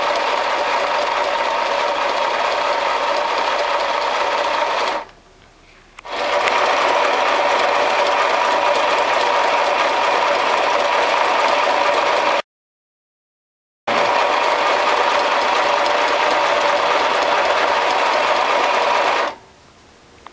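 Tivax LSS505 Lil' Sew & Sew desktop sewing machine running and stitching fabric, a steady mechanical whir with a steady hum in it. It stops for about a second around five seconds in, cuts out to dead silence for about a second and a half past the middle, and stops again near the end.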